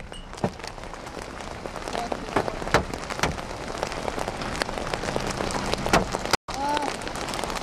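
Giant hailstones pounding a vehicle's body and glass: sharp, irregular hits over a steady rush of wind-driven rain and hail coming in through the smashed back window. The sound cuts out for an instant near the end.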